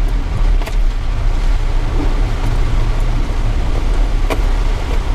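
Mitsubishi Triton ute heard from inside the cab, engine running with a steady low rumble as it drives slowly along a rough off-road track, with a couple of sharp knocks.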